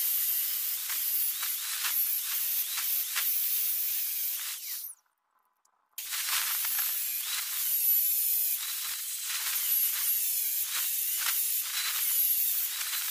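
Maktec MT90 angle grinder's cut-off disc cutting through the rusty steel shell of an old cooling-unit compressor, a steady high hiss of disc on metal. It drops out for about a second just before the middle, then the cutting carries on.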